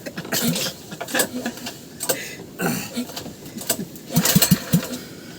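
Small petrol boat engine being pull-started, cranked over several times without catching.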